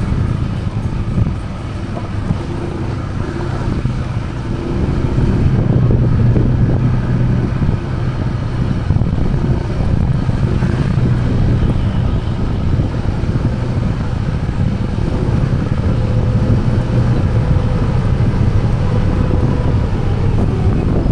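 A motor vehicle's engine running steadily over continuous road and wind rumble.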